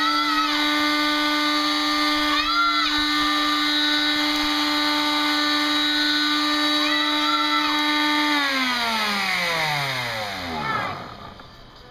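Electric palm sander running at a steady speed, then switched off about eight seconds in, its motor pitch falling as it winds down to a stop.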